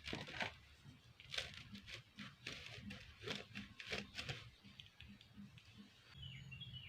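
Kinetic sand being handled, a series of soft, gritty crunching and crumbling sounds in quick irregular succession, fading out after about four and a half seconds.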